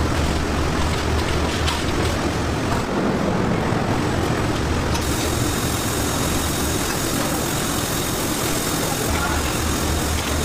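Steady low machinery hum and rumble. About five seconds in, a steady hiss of water spray joins.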